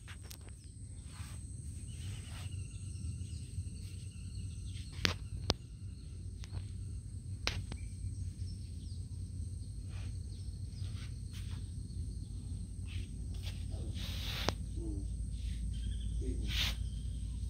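Forest ambience: a steady high insect drone over a low rumble of wind on the microphone, with scattered sharp clicks and a few faint high calls.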